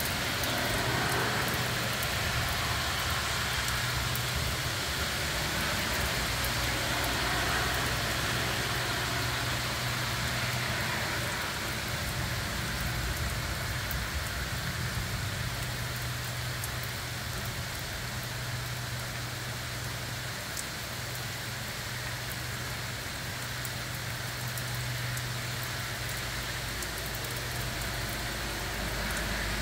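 Heavy rain falling steadily, with a steady low hum underneath.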